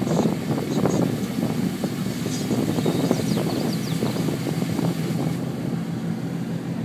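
Car driving on a wet, partly flooded highway, heard from inside the cabin: a steady engine hum under a ragged rumble of tyres on the wet road.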